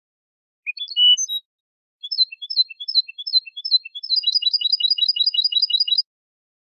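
European goldfinch song: a short twittering phrase about a second in, then a run of repeated notes at about two or three a second, breaking into a fast even trill that stops abruptly about two-thirds of the way through, with dead silence between phrases.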